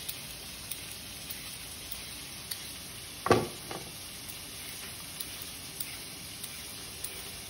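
Lamb chops sizzling steadily in a frying pan, with faint repeated scraping ticks of a vegetable peeler stripping carrots. A single loud knock about three seconds in, followed by a smaller one.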